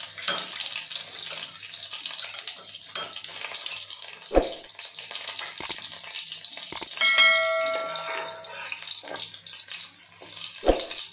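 Minced garlic sizzling in hot oil in a wok, a steady frying hiss, with two sharp knocks on the pan, about four seconds in and near the end. Partway through comes a click and then a bright bell-like ding ringing for about a second and a half, the sound effect of a subscribe-button animation.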